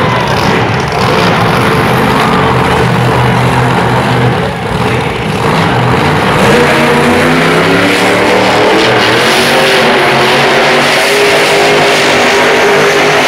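Grave Digger monster truck's supercharged V8 engine running loud and revving hard, its pitch wavering up and down as the truck spins a donut in the dirt. It gets louder from about six seconds in.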